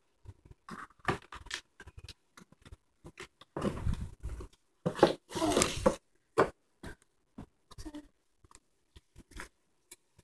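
Handling noise from a toy doll's diaper bag being pulled about and unpacked: irregular rustles, clicks and light knocks of fabric, packaging and small plastic bottles. There are two longer, louder bouts of rustling in the middle.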